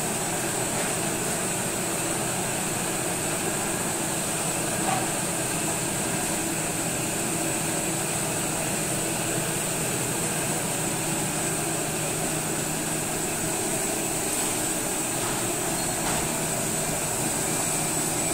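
Steady machinery din of steam-cooking equipment in a seafood-processing room: an unbroken hiss with a faint constant high whine and a low hum, with a couple of faint knocks.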